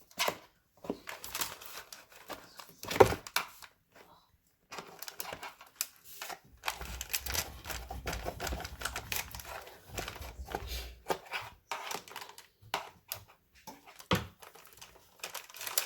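A peel-and-stick vinyl floor tile being handled and fitted into place: irregular clicks, taps and scrapes of the tile against the floor, with a low rubbing noise in the middle as it is slid and pushed.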